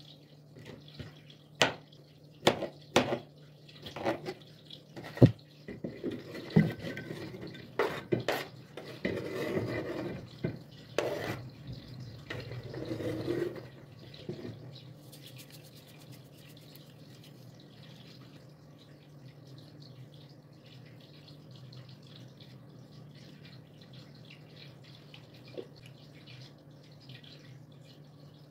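Kitchen knife chopping zucchini on a plastic cutting board: a run of sharp, uneven knocks. Then, about halfway in, the knife scrapes the cut pieces off the board into a glass dish, and the rest is quiet apart from a faint steady hum.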